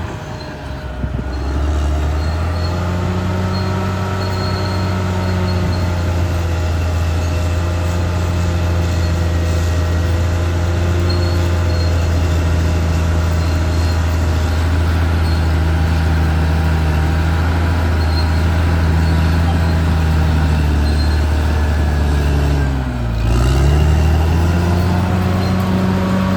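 Caterpillar D6R XL bulldozer's diesel engine working under load at a steady note, picking up just after the start and briefly sagging in pitch near the end before climbing back.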